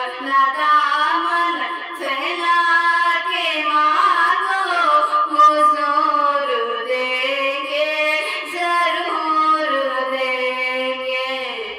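A woman singing a naat, in long, continuous melodic lines with gliding, drawn-out notes.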